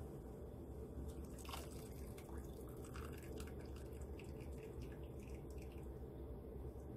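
Water draining from the cavity of a whole poached chicken and dripping and trickling back into a pot of hot water in small irregular drips, over a steady low hum.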